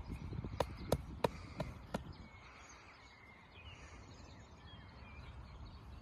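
Five quick taps on a plastic traffic cone packed with sand, about three a second, over low wind rumble on the microphone. Faint bird chirps follow.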